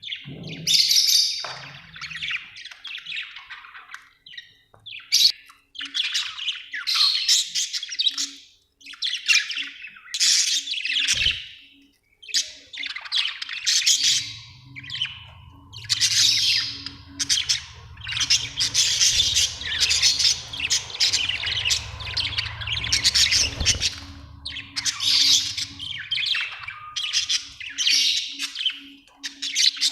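Budgerigars chirping in quick, near-continuous bursts of high calls. A low steady hum joins under the calls for a while in the middle.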